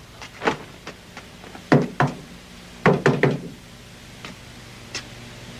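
Knocking on a wooden door: a single knock, then two, then a quick run of three or four, and a faint last knock near the end.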